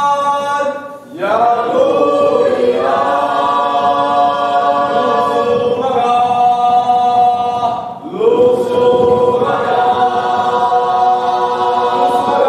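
A group of voices singing long held notes together in choir-like harmony. The chord breaks off about a second in and again about eight seconds in, and each time new notes slide up into a fresh held chord.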